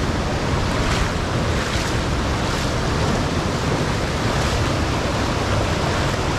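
Creek water rushing and splashing over rocks and boulders close to the microphone: a steady, loud rush, swelling slightly now and then.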